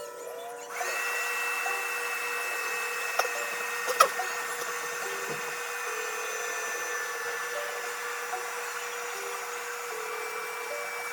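A small motor whirring steadily, starting just under a second in, with two sharp clicks around three and four seconds in.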